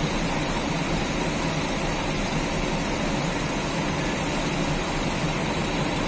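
Coach bus diesel engine running steadily as the bus rolls slowly across the yard.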